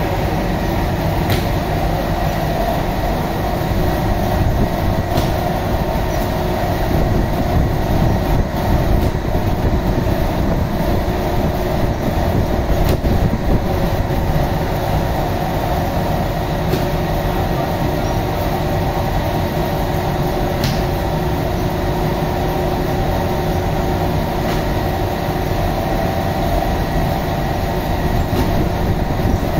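Bakery dough-sheeting machine running steadily: its motor, belts and rollers give a continuous mechanical drone with a steady hum, and a few faint clicks now and then.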